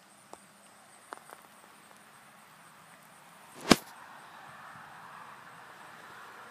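Quiet outdoor background with a few faint ticks, and one sharp, loud click just past the middle.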